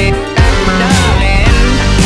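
Background music: a rock song with a steady beat.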